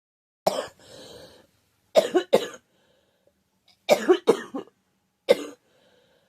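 A girl coughing in short fits: one cough, then two close together, then three in quick succession, then one more.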